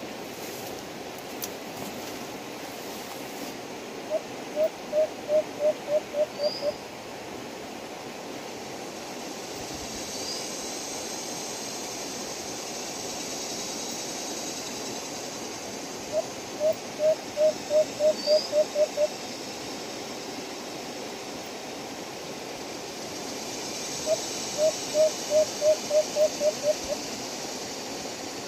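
White-eared brown dove calling: three runs of about nine low hooting coos, each run about two and a half seconds long and slightly quickening, roughly ten seconds apart. A few faint high chirps and a steady background hiss lie beneath.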